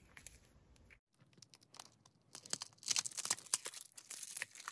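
Roll of washi masking tape being picked at and unwrapped by hand, giving a run of dry crackling and peeling sounds that starts about two seconds in.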